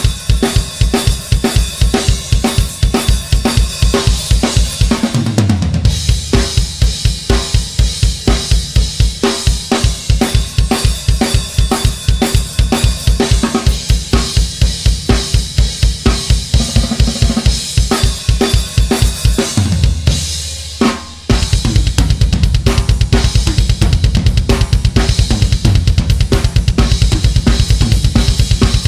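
Drum kit played fast, with bass drum, snare, cymbals and hi-hat in rapid, even strokes. A fill falling in pitch comes about five seconds in and again near twenty seconds, and after it the hits turn into a denser, unbroken run.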